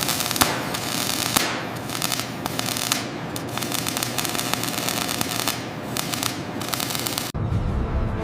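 Dense crackling hiss full of sharp clicks, cutting off suddenly a little over seven seconds in; low background music follows.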